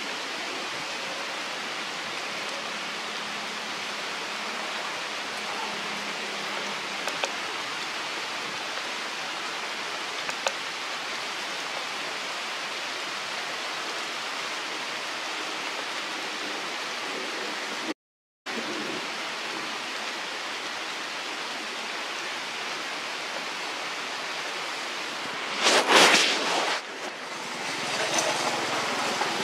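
Steady, even outdoor hiss with no distinct voice or tone in it, briefly cut off once just past the middle. Near the end a short, loud, noisy burst of about a second stands out, followed by a somewhat louder stretch of the same hiss.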